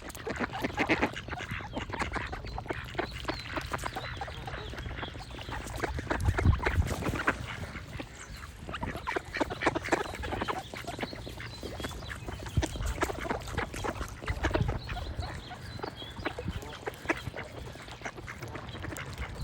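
Ducks quacking over and over in quick runs of short calls, with songbirds singing faintly behind them and a low rumble underneath.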